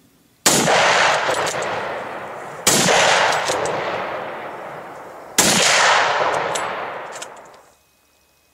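Three rifle shots about two and a half seconds apart, each followed by a long rolling echo that dies away over about two seconds.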